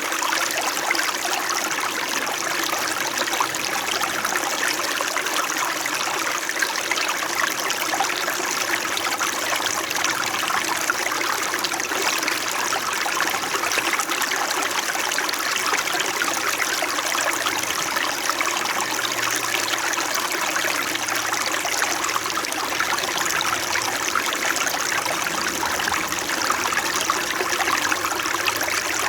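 Small mountain stream flowing over rocks, a steady babble and trickle of water.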